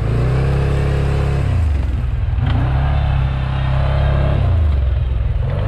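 Stels Guepard 850 quad bike's engine running under a rider, its revs dropping and picking up again twice as it is throttled.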